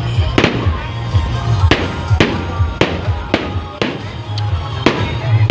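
Fireworks going off: about eight sharp bangs at uneven intervals. Music with a heavy bass beat plays under them and stops near the end.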